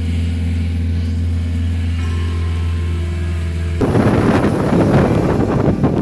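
A moving car, heard first as a steady low drone. About four seconds in it cuts suddenly to loud wind buffeting the microphone, with road noise, as the camera points out of the car window.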